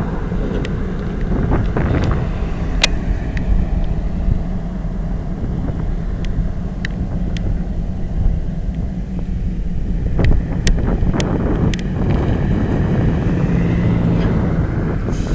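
Steady low rumble of idling EMD GP38-2 diesel locomotives with their 16-cylinder two-stroke engines, mixed with wind buffeting the microphone and scattered knocks from handling the camera.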